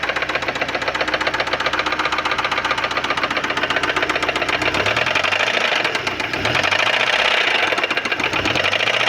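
Fiat Siena engine running with a heavy, rapid knocking from the front of the engine while the oil-pressure warning light stays lit. It is the sign of worn crankshaft bearings from oil starvation, which the mechanic judges fairly serious, with a sludge-clogged oil pump pickup and bearing metal in the sump.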